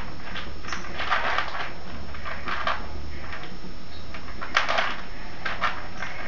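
Two fancy rats scuffling during a dominance fight: several short, scratchy bursts of scrabbling, in clusters about a second apart.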